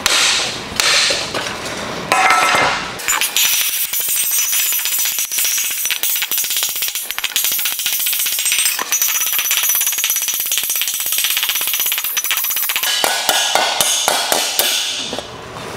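A few hammer blows on the sheet-metal panel over a dolly, then a file rasping back and forth across the panel's domed face. The file scrapes the marker off the high spots, which shows where the highs and lows are.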